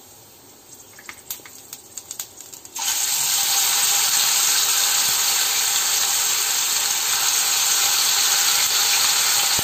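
Hot oil in a kadai crackling faintly a few times around curry leaves, then about three seconds in a marinated chicken piece goes in and the oil breaks into a loud, steady deep-frying sizzle.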